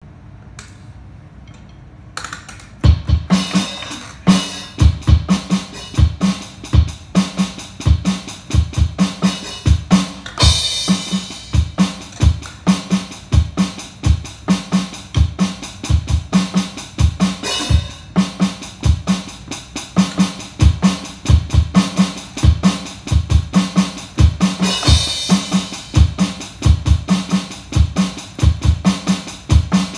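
Music carried by a steady drum beat with a deep kick drum, starting about three seconds in after a faint low hum. Brighter cymbal-like swells come in about ten and twenty-five seconds in.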